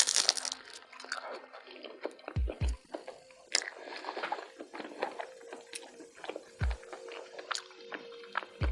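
Close-miked eating of a burrito: a loud crunchy bite at the start, then chewing with scattered wet clicks and smacks.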